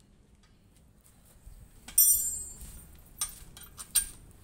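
Metal hand tools clinking against metal: one sharp ringing clank about two seconds in, then two lighter clicks near the end.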